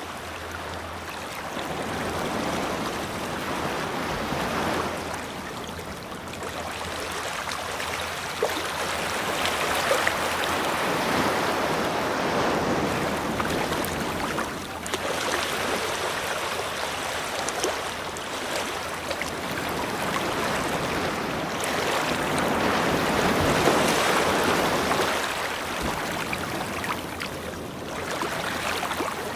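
Ocean waves breaking and washing up a beach, swelling and falling back every few seconds.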